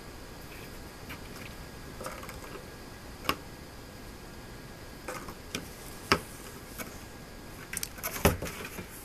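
A cat moving about inside a cardboard box and pushing its way out through the top flaps: scattered knocks on the cardboard, then a quick cluster of louder knocks and rustles near the end as it climbs out.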